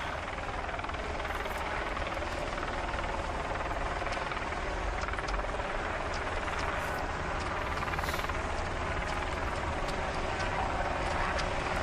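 Steady engine drone with a deep low rumble under an even hiss, from a motor vehicle or aircraft accompanying the ski race. A few faint clicks sound through it.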